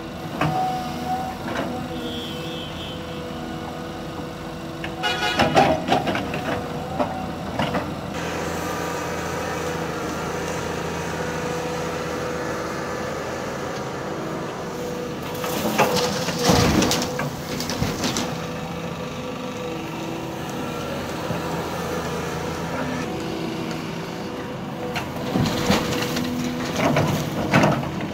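Hydraulic excavator's diesel engine running steadily, broken three times by loud spells of scraping and clatter. The last, near the end, is a bucketload of soil and rock pouring into a steel dump-truck body.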